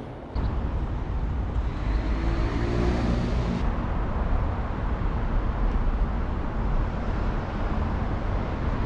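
Steady, low, heavy rumble of traffic crossing the steel bridges overhead, starting abruptly just after the start and cutting off just before the end.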